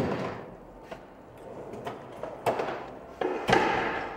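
Metal clunks and short sliding rattles of workshop tools being handled: a loud clunk at the start, then two more about two and a half and three and a half seconds in.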